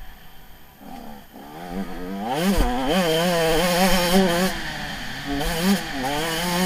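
Motocross bike engine heard from the bike itself: running low at first, then revving up sharply about two seconds in and held at high revs, the pitch wavering with the throttle, easing off briefly around five seconds before climbing again near the end.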